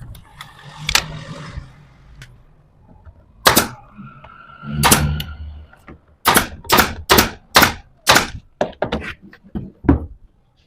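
A series of sharp knocks on wood: a few single thunks, then five strong strikes about half a second apart, followed by a quicker run of lighter taps.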